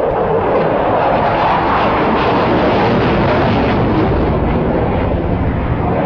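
Fighter jet flying low past, its jet engine noise loud and steady.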